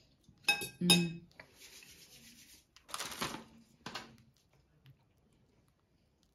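Two short clinks close together about a second in, then soft rubbing and squishing sounds of sticky slime being kneaded by hand, which fade out after about four seconds.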